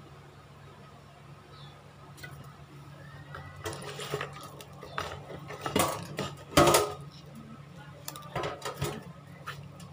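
Whole fish being turned and rubbed in rice by hand inside a metal pot: scraping and rustling with several knocks against the pot, the loudest about two-thirds of the way through, over a steady low hum.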